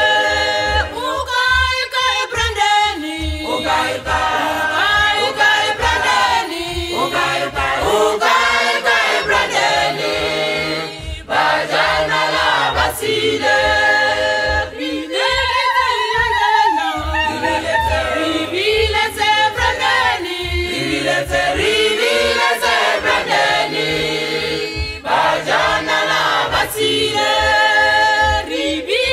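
Background music: a choir singing over a steady low drumbeat.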